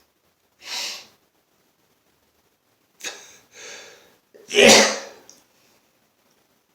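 A man sneezing: short breathy sounds first, then one loud, forceful sneeze about four and a half seconds in. It is part of a nonstop sneezing fit from allergies, with his nose itching.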